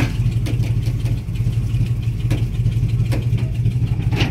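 Truck engine idling steadily, with a few sharp clicks, while the chain lift raises the heavy table.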